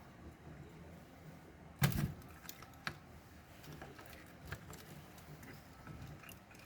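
Small plastic and metal parts and tools being handled while a robot is taken apart: one sharp clatter about two seconds in, then scattered light clicks.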